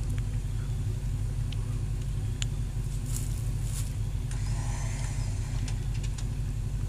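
SUV engine idling steadily, a low even hum with no revving, with a few faint clicks over it.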